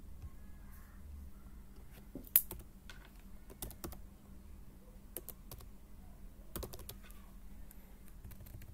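Computer keyboard keys tapped in short, irregular clusters as a word is typed, with one louder keystroke about two and a half seconds in.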